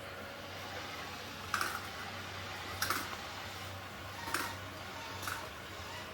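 ROIDMI EVA robot vacuum running with a steady low hum, broken by four sharp clicks spaced about one to one and a half seconds apart.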